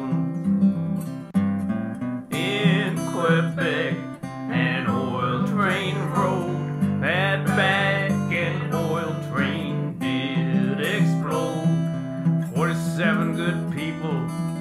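Acoustic guitar strumming a country-style accompaniment in an instrumental break, with a sliding, bending melody line over it.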